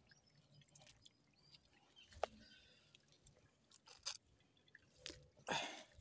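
Faint, scattered squelches and clicks of footsteps in soft wet mud, the loudest a wet squelch near the end.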